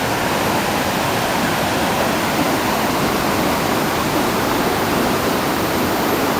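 Waterfall rushing steadily: a loud, even wash of falling water with no breaks.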